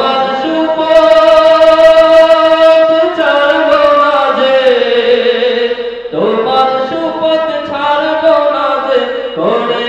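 A man singing a Bengali Islamic gazal into a microphone, with no instruments heard. He holds long, wavering notes in phrases, breaking for a breath about every three seconds.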